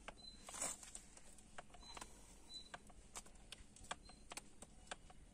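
Faint, irregular clicks of a grease gun being pumped slowly, forcing grease through a grease nipple into an ATV's suspension joint.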